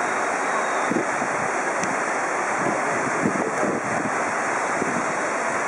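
A steady, even rushing noise, like running water or wind, with no clear pitch or rhythm.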